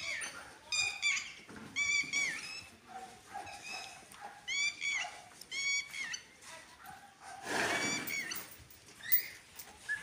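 Short, high-pitched animal calls, in quick runs of two or three, repeated several times over the first six seconds. Later comes a brief breathy rush of noise, then a single sharp click.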